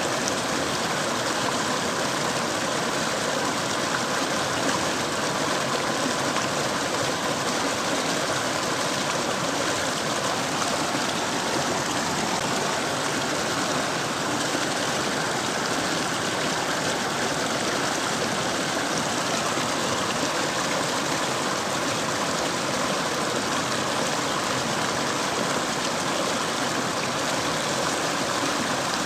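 Mountain stream rushing over rocks, a steady, even flow of water.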